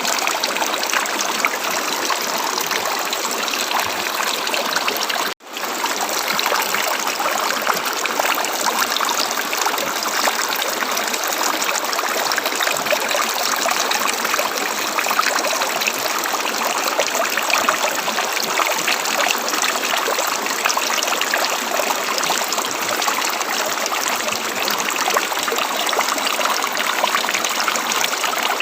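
River water running steadily, an even rushing hiss without a pause except one brief cut-out about five seconds in.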